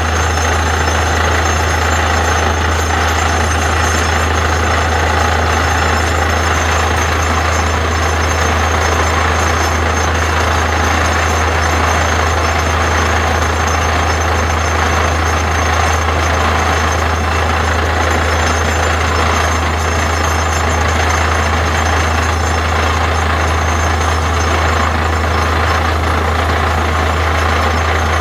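Truck-mounted borewell drilling rig running steadily, its engine making a loud, unbroken drone along with the rush of water and slurry blowing out of the bore hole around the drill pipe.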